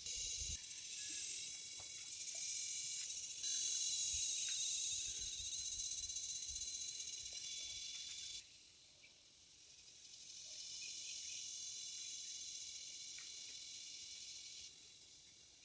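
Insects chirring in a steady high-pitched chorus. It drops off sharply about halfway through, then swells back up.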